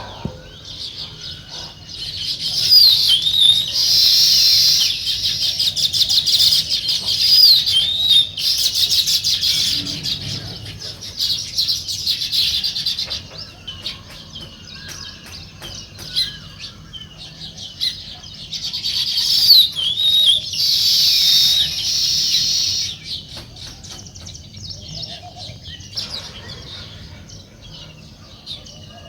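House sparrows chirping, many short overlapping chirps at once, in two loud busy bouts with sparser chirping between and after them.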